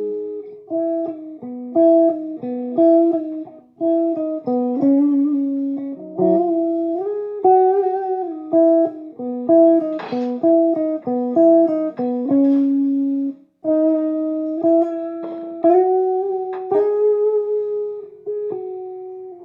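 Electric guitar played with a clean tone through a homemade guitar amplifier: a slow melodic line of picked single notes and two-note chords.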